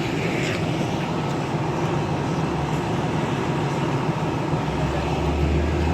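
Steady low engine rumble of an idling vehicle. A deeper, louder drone comes in about four and a half seconds in.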